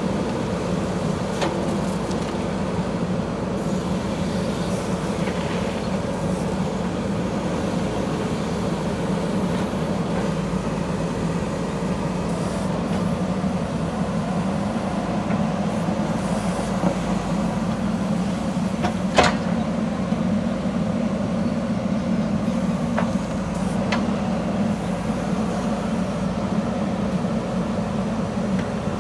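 JCB backhoe loader's diesel engine running steadily while the machine digs, with a few sharp clanks; the loudest comes about two-thirds of the way through.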